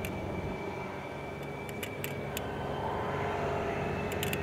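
Diesel engine of a crawler combine harvester running steadily under load as it drives a rotary tiller through a flooded rice paddy, growing slightly louder in the second half, with a few faint clicks.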